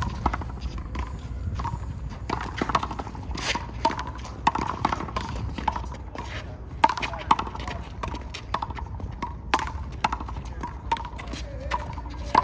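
Handball rally: a small rubber ball is slapped by hands and smacks against a wall, giving sharp smacks at uneven intervals, with voices in the background.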